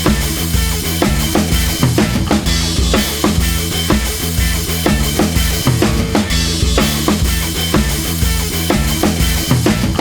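Rock music with a full drum kit and bass, playing a steady beat.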